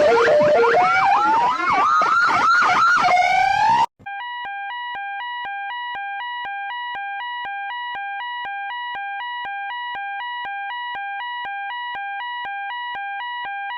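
Emergency alert alarm tones: a loud jumble of overlapping rising and falling siren-like sweeps and chirps, then, after a brief break about four seconds in, a quieter steady two-tone beep that alternates between two pitches about three or four times a second.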